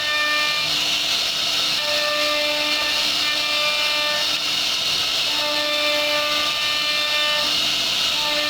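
CNC router carving wood: a steady high spindle whine over a hiss of cutting, with machine tones that change pitch in steps every second or so as the axes move.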